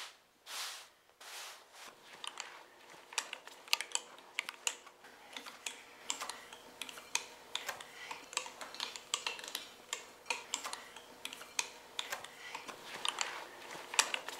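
Quick, irregular light clicks and taps of small hand work on a hard work surface, with three brushing or swishing strokes in the first couple of seconds.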